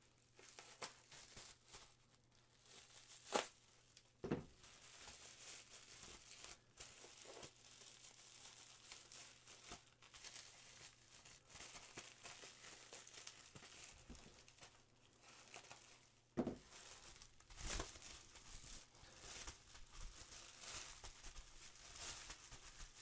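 Faint crinkling and rustling of bubble wrap and plastic bags being handled and unwrapped from resin model-kit parts, with a few sharp taps scattered through.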